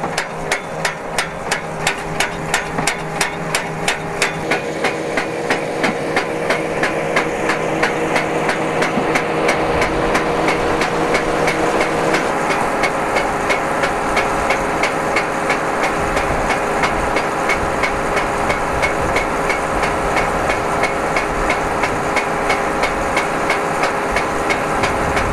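A cable-pulling winch runs steadily, with a regular metallic clacking of about two clacks a second, as it hauls steel wire rope over its grooved drums. The machine's hum grows fuller about ten seconds in.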